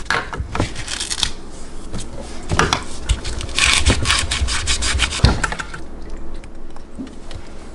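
Kitchen food prep: quick runs of rapid knife strokes, about eight a second, chopping on a cutting board, with short pauses between runs.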